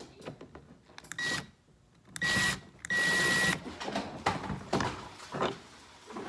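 Cordless drill/driver motor run in three short trigger bursts with a steady whine, driving a screw into a pilot hole in a plastic kayak deck, followed by a few small knocks of handling.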